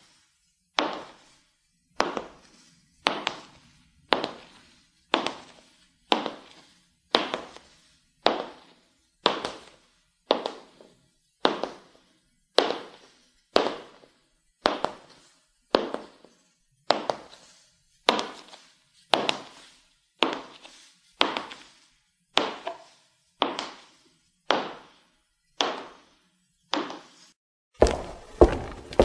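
High-heeled shoes clicking on a hard floor in slow, even steps about one a second, each click with a short ringing echo. Near the end the steps become quicker and louder, with more thud.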